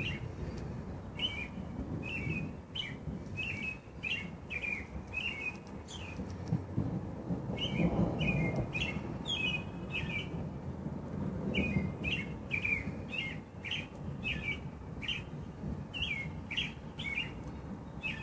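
A bird chirping over and over in short quick calls, in runs of several at a time, over a low rumble of distant thunder that swells about eight seconds in and again a few seconds later.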